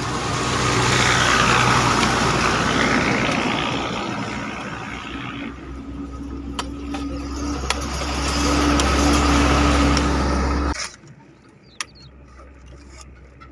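A motor vehicle's engine running close by, louder in two swells, then cutting off suddenly about eleven seconds in. A few sharp knocks of spades striking the gravelly ground stand out over it and after it.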